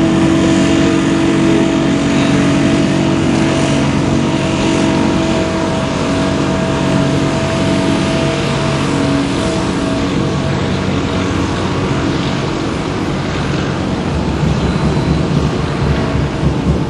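Boat engine running with a steady hum, part of it easing off after about ten seconds.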